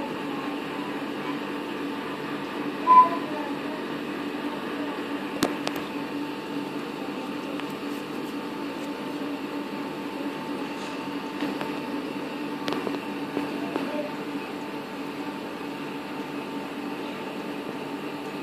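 Steady mechanical hum with a few fixed tones, typical of reef-aquarium pumps running. A brief high tone sounds about three seconds in, and a couple of faint clicks come later.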